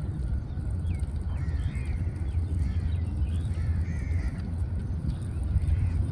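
Birds calling repeatedly in short rising and falling notes over a steady low rumble.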